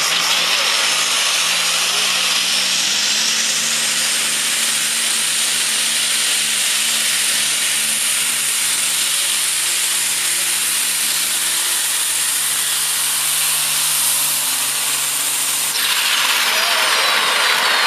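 Modified pulling tractor's V12 diesel engine running flat out under load during a pull, its note climbing over the first few seconds and then holding steady. The sound changes abruptly near the end.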